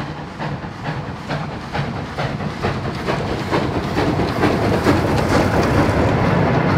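Steam locomotive Speyerbach approaching and passing close by with its train of vintage coaches: rhythmic exhaust chuffs, about three a second, growing louder. Near the end the rumble and clatter of the wagons' wheels rolling over the rails takes over.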